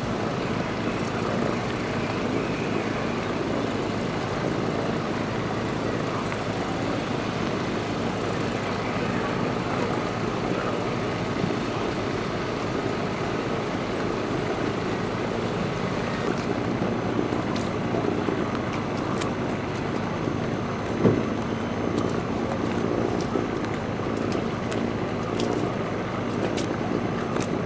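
Steady rumble of a running motor, with a single sharp knock about three-quarters of the way through and faint light ticks near the end.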